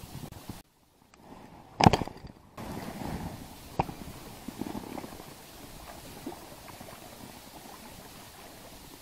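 A sharp knock about two seconds in, then a steady low wash of wind and sea water at the shore, with a few small clicks.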